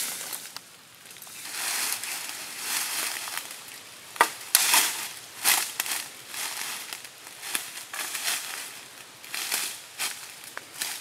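Dry sticks cracking and snapping, with leaves and undergrowth rustling, as branches are broken off and gathered by hand. A few sharp cracks come about four to five and a half seconds in.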